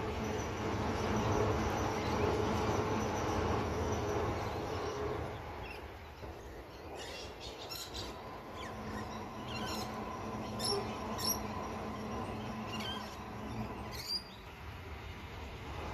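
Adelaide Metro 4000 class electric multiple unit running over a rail bridge: a steady rumble with a faint motor hum, loudest for the first five seconds and then fading. Short high chirps come several times in the quieter middle stretch, and a hum builds again near the end as the next train approaches.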